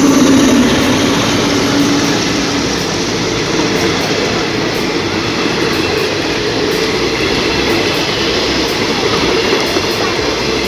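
Train passing through a small station at close range: a loud, steady rumble of the locomotive and cars on the rails. A steady hum fades out after about two and a half seconds.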